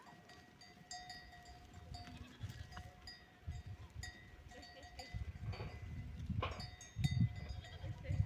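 A livestock bell clinking irregularly, about once or twice a second, as the animal moves, with low thuds of steps that grow louder toward the end.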